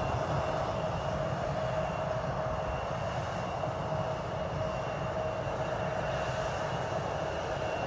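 Embraer E-Jet's CF34 turbofan engines running at low taxi power: a steady rushing noise with a held whine over it.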